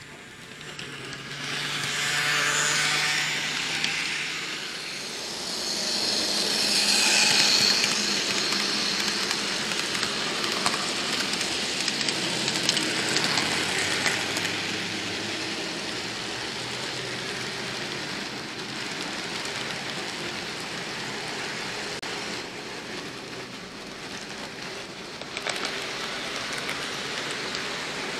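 Model railway train running, heard from a camera riding on it: a steady rolling rattle of wheels on the track with a motor whir. It swells for the first several seconds as another model train passes close by on the adjacent track, then settles to an even run.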